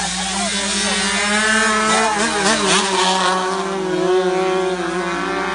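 Small 135cc racing motorcycle engines running hard as two bikes go round the circuit, their notes steady and rising and falling slightly as they lap.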